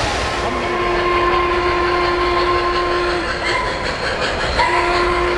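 O-scale model train's onboard sound system blowing its whistle: one long blast of about three seconds, a short toot, then another blast near the end, over the steady rumble of the cars rolling on three-rail track.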